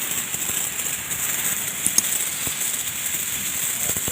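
Steady hiss of a sprayer in use while a refrigerator is cleaned, with a few faint clicks.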